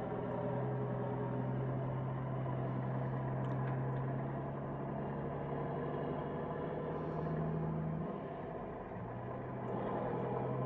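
An engine running steadily with a low, even hum that drops slightly in pitch about eight seconds in.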